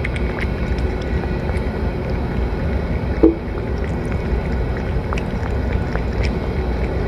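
Cat eating wet food from a metal dish: small wet clicks of chewing and licking over a steady low rumble, with one brief squeak-like sound about three seconds in.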